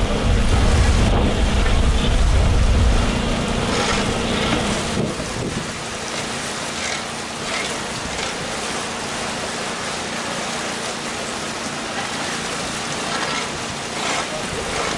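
Water rushing and churning into a canal lock chamber through the opened paddles at the upper gates, a steady loud rush. The rush carries a heavier low rumble for roughly the first three seconds.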